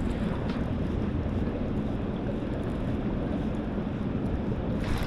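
Steady wind rumbling on the microphone, with water noise around a fishing boat.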